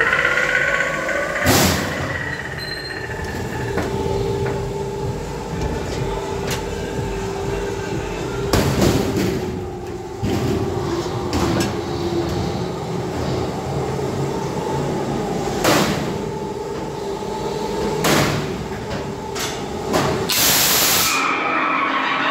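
Ghost-train ride car rattling and rumbling along its track, under a steady hum, with several sharp bangs spread through the ride.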